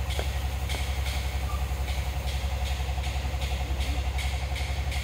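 An engine idling steadily with a fast, even low throb, with short light scraping strokes repeating about twice a second above it.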